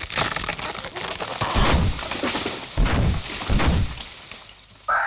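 Sound effects of branches cracking and brush crashing, with three heavy thuds like big footsteps, as a large creature comes through the undergrowth; a short, loud harsh sound comes right at the end.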